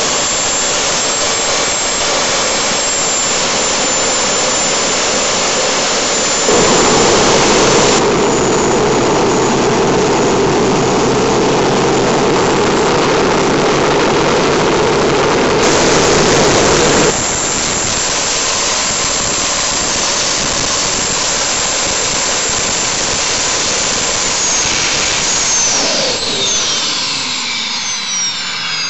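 Microturbo TJ24 turbojet running: a loud rushing noise with a steady high whine. It steps up louder for about ten seconds, then settles back, and near the end spools down with a falling whine.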